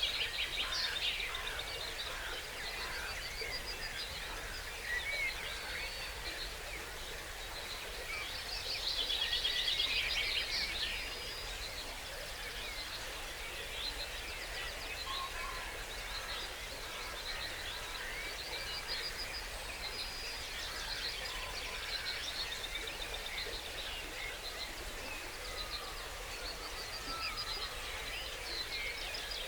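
Dawn chorus of many songbirds singing at once, overlapping songs and calls, with a loud fast trilling song at the start and again about nine seconds in. Beneath it runs a steady hiss from a woodland stream.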